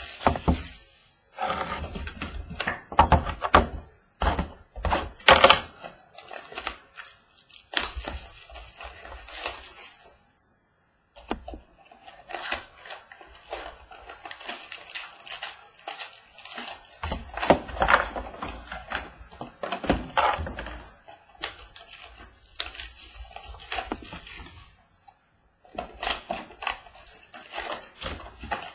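Cardboard trading-card boxes being opened by hand, with flaps pulled and torn. Card packs rustle and are knocked down onto a wooden tabletop. There are irregular clicks and rustles throughout, with heavier thunks now and then.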